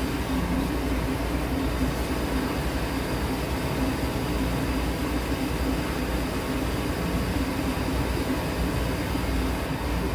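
Steady roar of a commercial kitchen's lit gas range burner, a constant rumbling noise with a low hum underneath and no breaks.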